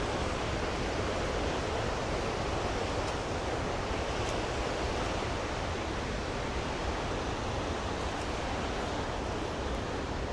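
Rushing water of a river waterfall, a steady even roar.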